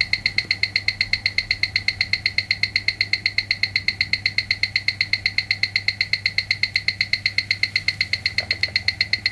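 Ticks of a Miyota 9039 automatic movement amplified through a Weishi No 1000 timegrapher's speaker: a fast, even run of sharp clicks at 28,800 beats per hour, eight a second. The even spacing shows the watch running in beat, with about 0.1 ms beat error.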